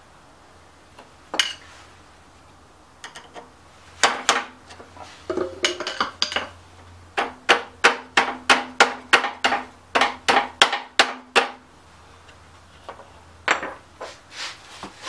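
Hammer striking a drive gear onto the self-propel transmission axle of a Craftsman mower, metal on metal: a few single taps, then a quick run of about fifteen blows, roughly four a second, with a faint ring under them.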